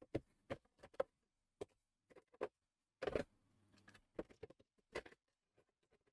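Hard plastic miniatures clicking and tapping against a plastic storage tray as they are handled and fitted into place: a scatter of short, irregular taps, with a slightly longer rub about three seconds in.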